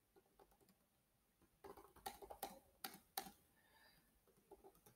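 Faint typing on a computer keyboard: a quick run of keystroke clicks from about a second and a half in to just past three seconds, with a few more near the end.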